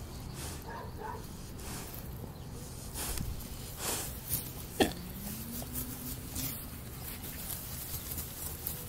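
Pig lying down making short grunts and snuffles, the loudest a brief sharp one about halfway through.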